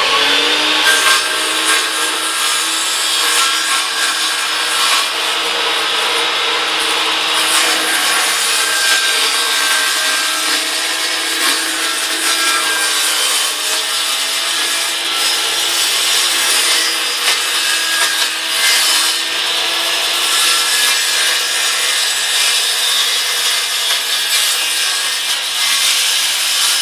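Worm-drive Skilsaw circular saw running steadily while it cuts a long straight cut through thin plywood, guided along a straight-edge fence, trimming the jig's base to the blade's exact cutting line.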